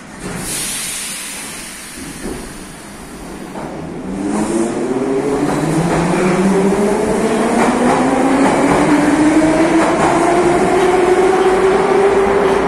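Metro train pulling out of the station. A burst of hissing air comes just after the start, then from about four seconds in the traction motors' whine rises steadily in pitch as the train gathers speed past the platform, over wheel-on-rail noise.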